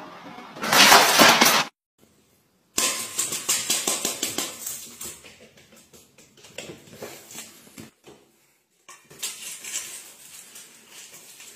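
A loud, brief hissing burst about a second in. Then come repeated clicking and rattling of dry cat food against a stainless-steel bowl as a cat eats from it, loudest at first and fading, with more clatter near the end.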